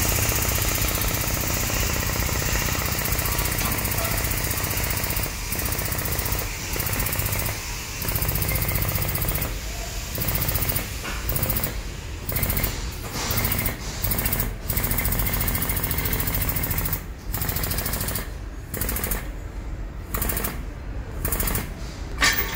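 Rapid mechanical hammering from a percussive power tool during body-straightening work on a crumpled rear quarter panel. It runs continuously at first, then from about five seconds in comes in short bursts with brief pauses.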